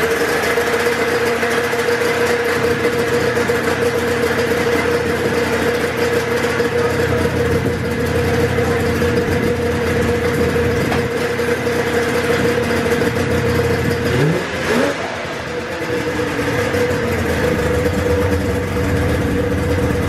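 Polaris Indy XLT's three-cylinder two-stroke snowmobile engine running at a steady fast idle on freshly reinstalled carburettors, an idle the owner feels may be a little high. About fourteen seconds in it rises in pitch briefly, then settles back to idle.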